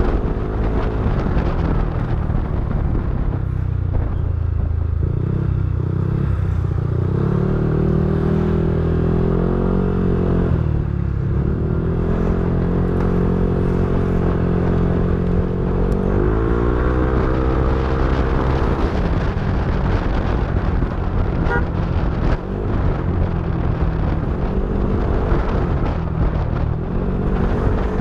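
Yamaha NMAX v3 scooter's single-cylinder engine running through a TSMP 2.5 aftermarket exhaust, its pitch held steady for stretches and rising and falling several times as the engine speed changes.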